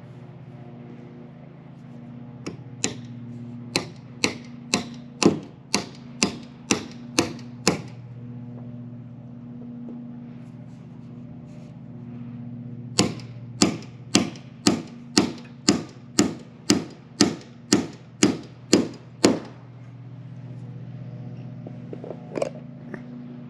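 Claw hammer driving nails into a wooden purlin on a roof truss: two runs of sharp strikes, each a dozen or so at about two a second, with a pause of about five seconds between them.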